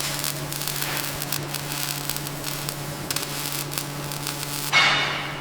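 Steady low hum with crackling, clicking noise over it; just under five seconds in, a louder rush of noise sets in and fades.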